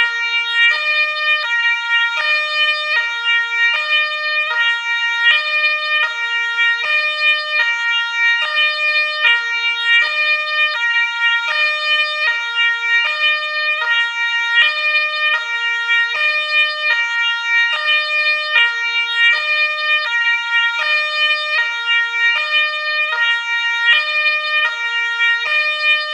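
Ambulance two-tone siren alternating steadily between a high and a low note, repeating without a break.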